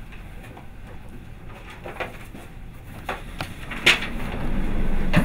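A few light knocks and clicks, the loudest about four seconds in, over a low rumble that swells near the end.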